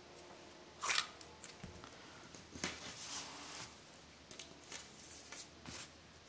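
Faint handling noises of metal lightsaber hilt parts: a sharp click about a second in, a longer rustle around three seconds, and a few small ticks as a part is set down on the cloth-covered table.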